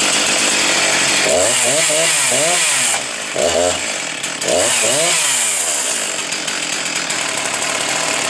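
Husqvarna 261 61 cc two-stroke chainsaw running at high revs, its pitch rising and falling a few times, with a brief drop in level about three seconds in.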